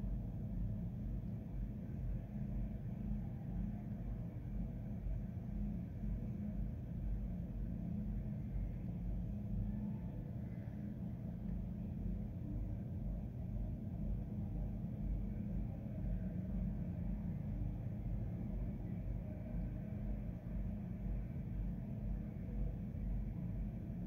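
Steady low rumble with a faint hiss, unchanging throughout; no fountain music can be heard.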